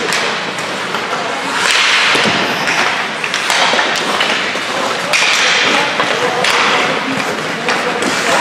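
Ice hockey play: skate blades scraping the ice in repeated swells, with sharp clacks of sticks and puck and knocks against the boards. Scattered shouts are mixed in.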